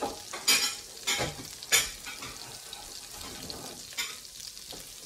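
Pan drippings and blackening seasonings left from seared steaks sizzling steadily in a hot enameled cast-iron braiser. There are three loud spits in quick succession in the first two seconds and another about four seconds in.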